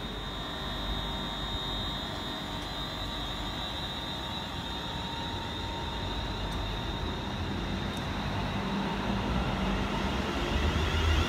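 London Northwestern Railway electric multiple-unit train moving along the platform: a steady rumble of wheels and running gear with a thin high whine, growing louder near the end.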